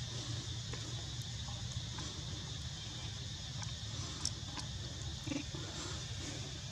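Steady high insect drone over a low rumble, with a few faint scattered clicks.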